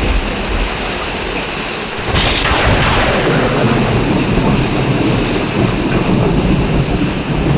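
Heavy rain and wind with a sudden loud crack of thunder about two seconds in, surging again a moment later and rumbling away over the following seconds.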